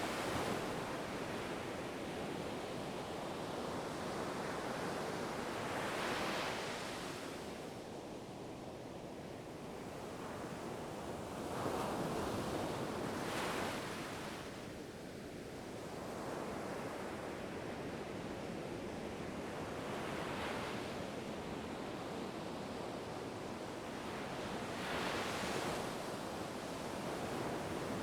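Ocean waves breaking and washing on a shore in a continuous rushing wash. The wash swells and eases every five to eight seconds as each wave comes in.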